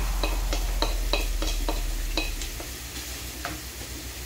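Wooden spatula knocking and scraping against a plate and a frying pan as food is scraped in and stirred, over chicken pieces sizzling in the pan. About three light knocks a second, fading toward the end.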